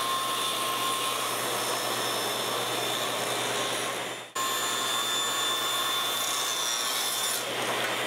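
Sliding table saw ripping a hardwood strip into a 1 by 1 inch block: the blade runs steadily through the wood. The sound dips sharply for a moment a little over four seconds in, then resumes.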